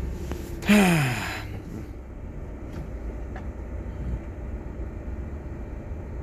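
Inside a moving Volvo lorry's cab: a steady low engine and road rumble. About a second in, a sudden loud burst of hiss with a tone falling in pitch, over within about a second.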